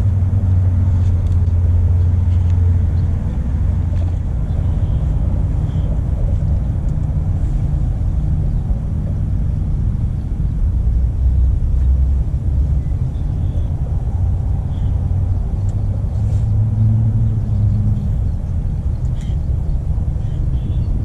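Wind buffeting the microphone outdoors, a steady low rumble that swells and eases, with faint short high chirps.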